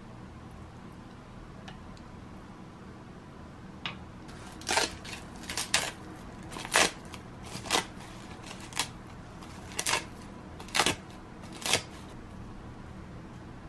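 Crisp dried seaweed (nori) sheet being torn by hand into small pieces, about ten short, sharp rips at uneven intervals starting about four seconds in. A steady low hum runs underneath.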